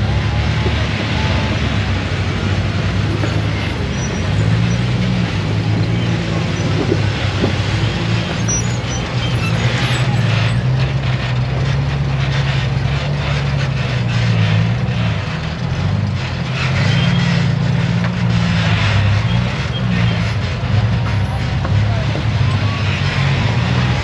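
Off-road rock crawler's engine running and revving unevenly, its pitch stepping up and down, over a constant hiss.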